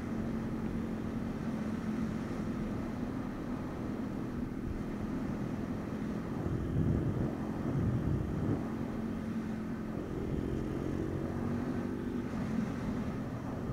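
MRF 140 RC pit bike's single-cylinder four-stroke engine running at a steady pace under way, heard from the rider's position.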